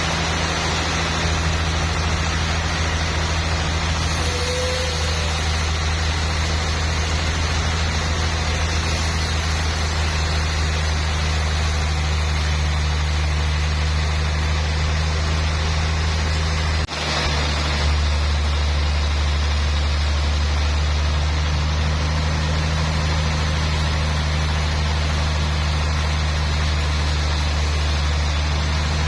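Sawmill engine running steadily with an even, low drone, with no change in load; a brief drop about two-thirds of the way through.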